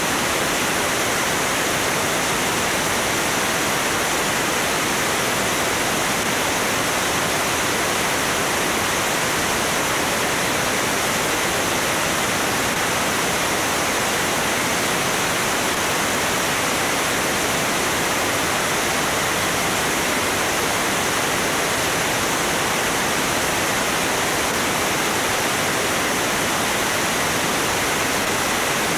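Steady rush of airflow over a camera mounted outside under the wing of a Cessna 205 in cruise flight at about 170 mph, an even noise with no change.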